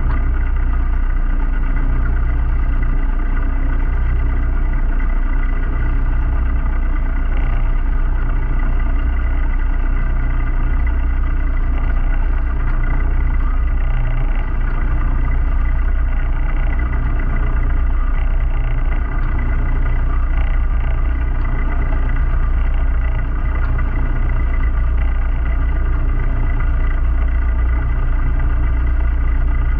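A sailing yacht's inboard diesel engine running at a steady speed while motoring, an even drone with a strong low hum and no change in pace.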